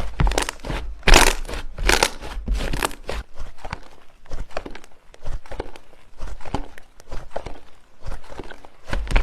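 Slime being squeezed and pressed by hand, giving irregular crinkling, crunchy crackles and clicks, loudest in a few bursts in the first three seconds.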